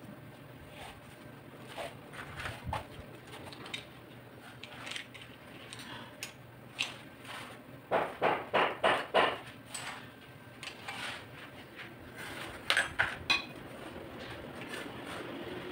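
Metal hand tools clinking and clicking as a socket wrench is handled, with a quick run of about six clicks around eight seconds in and three or four sharp clicks about thirteen seconds in.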